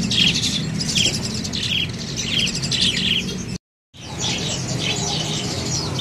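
Many caged birds chirping and twittering together, with quick trilled chirps repeating over a low steady hum. The sound cuts out for a moment a little past halfway.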